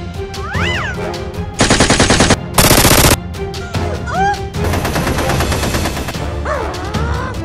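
Two rapid bursts of machine-gun-fire sound effect, about two and three seconds in, over background music.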